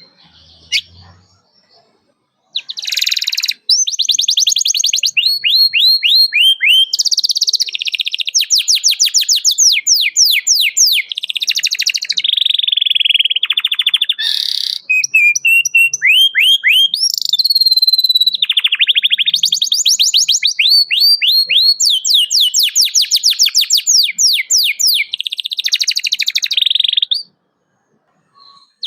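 Domestic canary singing loudly in full song, a long run of rapid trills. Each trill is a fast series of repeated downward-sliding whistled notes, and the trill type changes every second or two. The song starts about two and a half seconds in and stops shortly before the end.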